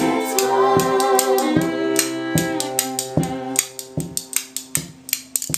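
A small acoustic ensemble of violin, cello, voices and hand percussion ends a song. The players and singers hold a chord over percussion strikes about two or three a second. The chord dies away about three and a half seconds in, and the percussion carries on alone with quicker taps until the sound cuts off.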